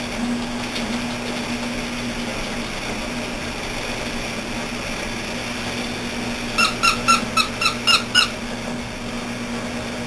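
Squeaking while chihuahua puppies play: about two-thirds of the way in, a quick run of about eight short, high squeaks, roughly five a second, over a steady low hum.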